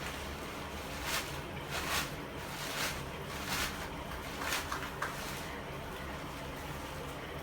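A steady low engine hum, with several short hissing rushes of noise over it.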